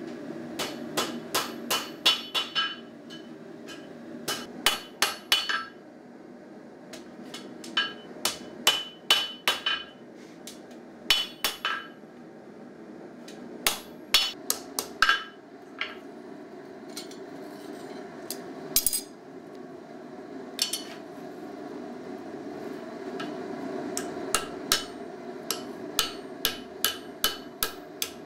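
Hand hammer striking hot steel on an anvil in irregular runs of quick blows, each strike ringing, with pauses of a second or more between runs. A gas forge runs steadily underneath.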